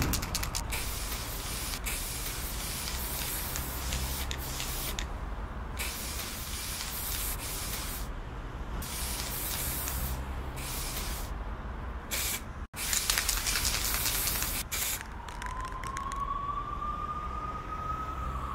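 Aerosol spray paint cans hissing in long bursts with short breaks between them, as paint is sprayed onto a wall, over a steady low hum. A rising tone comes in for the last few seconds.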